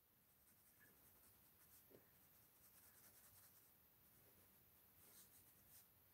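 Near silence, with faint scratching of a pen drawing on sketchbook paper, in scattered short strokes that come more often in the second half.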